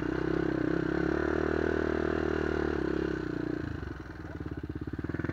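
Honda 400EX's single-cylinder four-stroke engine, with an aftermarket White Bros exhaust, running steadily on part throttle while riding a dirt trail. About three and a half seconds in it comes off the throttle to a lower, lumpy chug where the separate firing beats can be heard.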